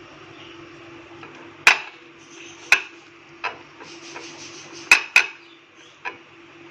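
Several sharp, irregularly spaced knocks and clinks of kitchenware against a mixing bowl as raw beef chops are handled and dipped into marinade, over a faint steady hum.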